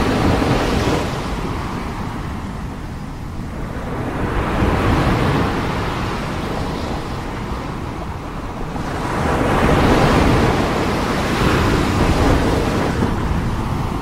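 Ocean surf breaking and washing up a beach: a rushing hiss that swells as each wave breaks, about every five seconds, over a steady low rumble.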